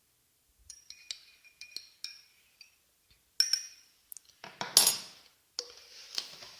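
Metal spoon stirring in a cup, clinking against its sides. A run of light clinks, each with a short ringing, gives way to a few louder knocks from about halfway in.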